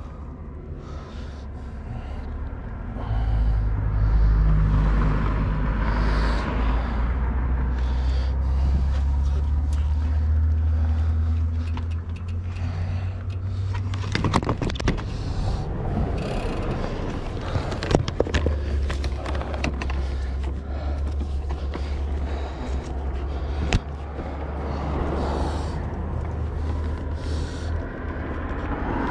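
Bicycle being lifted and handled beside a car, heard through the bike-mounted camera: scraping and a few sharp knocks over a steady low rumble.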